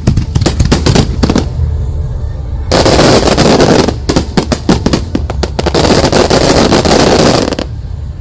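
Fireworks firing at close range in a rapid sequence. A quick string of sharp reports comes first, then two dense barrages of continuous crackle, the first about a second long and the second about two seconds, with more rapid shots between them.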